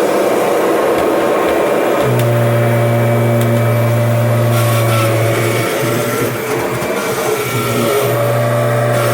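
1994 Kirby G4 upright vacuum running steadily at full speed, its motor whine holding level. A deeper hum comes and goes several times from about two seconds in.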